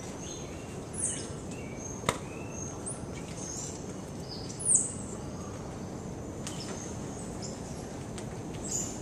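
Short, very high-pitched chirping calls from animals in the rainforest canopy, a few seconds apart, with the loudest a little before the middle. They sound over a steady background hiss and a thin, steady high tone, and there is one sharp click about two seconds in.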